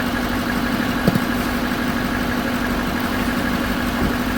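Truck engine idling steadily, with a single brief knock about a second in.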